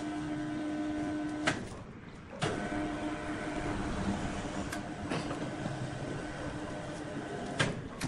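Electric overhead hoist motor running with a steady hum while lifting a heavy wood slab. It stops with a click about one and a half seconds in and starts again about a second later, with a few more sharp clicks after that.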